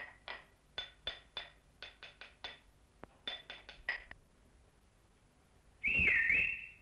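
Pickaxes and hammers striking rock in quick, uneven metallic clinks that ring briefly, stopping about four seconds in. Near the end comes a short high tone that dips in pitch and comes back up.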